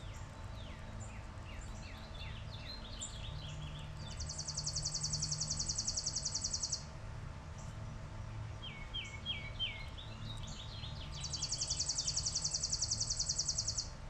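Chipping sparrow singing: two dry, rapid trills of identical high chip notes, each about three seconds long, the second some seven seconds after the first. Before each trill, other small birds give short chirps that slide down in pitch.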